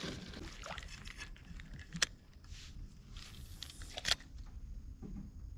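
Quiet handling of fishing tackle, with two sharp clicks about two seconds in and again, louder, about four seconds in, as a spinning rod and reel are readied.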